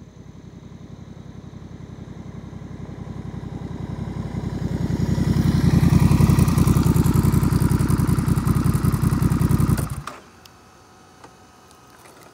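Honda Rebel CMX1100's parallel-twin engine running through a Coffman Thunder aftermarket exhaust with an even, low pulsing beat as the motorcycle rides up slowly, growing louder as it nears. The engine sound stops suddenly about ten seconds in.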